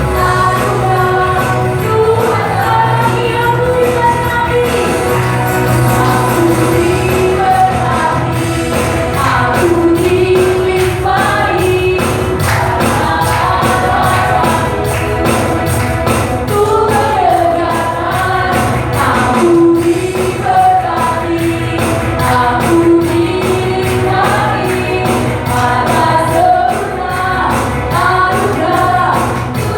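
Congregational praise song sung by several voices over a band, with a steady percussion beat coming in about eight seconds in.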